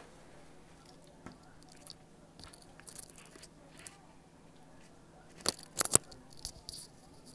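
Handling noise from fitting wired earbuds: scattered light rustles and small clicks, with a few sharp clicks about five and a half to six seconds in.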